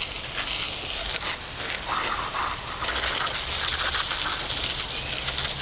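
Garden hose jet spraying the base and casters of an office chair, water spattering onto concrete: a steady hiss with splashing, washing the dust off the underside.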